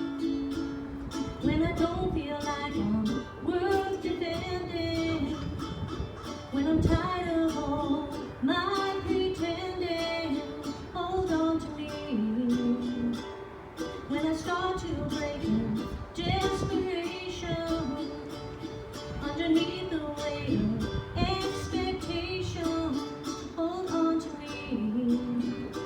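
Acoustic gospel music: a strummed plucked-string instrument keeping a steady rhythm under a melody line.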